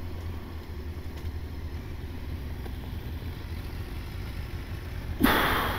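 1999 Honda CBR900RR FireBlade's inline-four engine idling steadily as a low rumble while stopped, with a sudden loud burst of noise about five seconds in.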